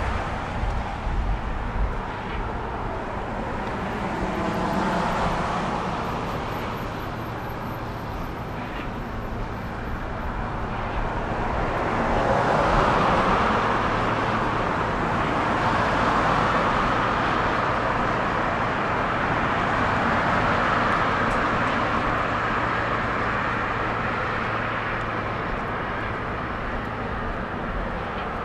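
Road traffic: cars passing along the street, their tyre and engine noise swelling and fading over a steady low hum.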